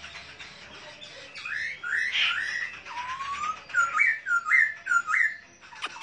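A caged songbird singing a warbling whistled phrase that ends in four quick repeated hooked notes. A fast run of short downward chirps, several a second, starts just before the end.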